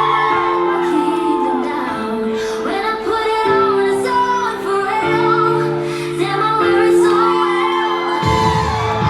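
Pop music with female singing over held chords that change about every second and a half; a heavier low beat comes in near the end.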